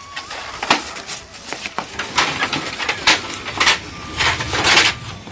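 Long bamboo poles being moved by hand: a series of irregular wooden knocks and clatters with scraping as the poles strike and slide against each other, busiest in the second half.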